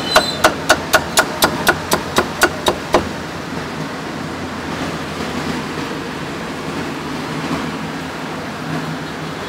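Cleaver chopping roast pork on a wooden chopping block: a quick, even run of chops, about four a second, that stops about three seconds in. After that there is only a steady background hum of street noise.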